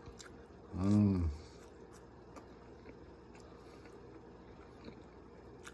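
A man's short wordless voice sound about a second in, a single drawn-out utterance that rises and falls in pitch, with faint small clicks around it.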